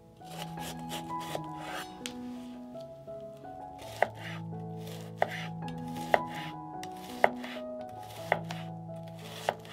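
Knife cutting vegetables on a cutting board in a quick run of short strokes, over soft background music with held notes. From about four seconds in, a sharp tick comes about once a second.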